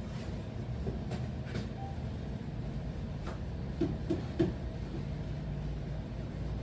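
Steady low background rumble with a few faint clicks and knocks, and three short faint tones about four seconds in.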